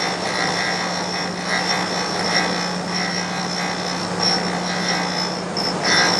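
Surface grinder's abrasive wheel grinding the end of a steel shaft to a crisscross finish, over the steady hum of the spindle motor. The grinding hiss swells and fades in quick, uneven pulses as the shaft is turned against the wheel.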